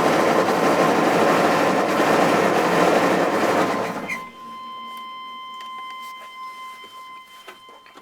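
6.5-litre diesel V8 in a K3500 truck running with a knock and rattle, then shut off about four seconds in, its noise dying away quickly. The owner can't tell whether the knock is a spun rod bearing, a cracked piston or a head gasket. After shutdown a steady high tone remains, with a few faint clicks.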